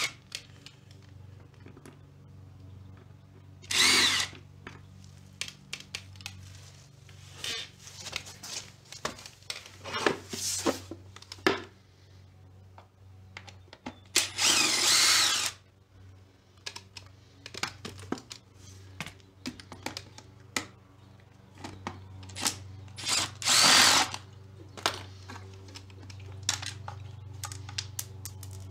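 Cordless drill-driver with a JIS bit whirring in several short runs as it backs out the screws of a scooter's air-filter cover. The longest run lasts about a second, near the middle. Small clicks and knocks of screws and plastic come between the runs, over a steady low hum.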